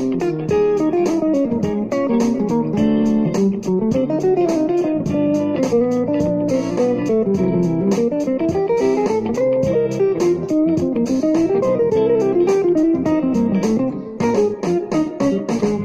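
Electric guitar playing fast single-note solo lines that wind rapidly up and down, turning to choppier, clipped notes near the end.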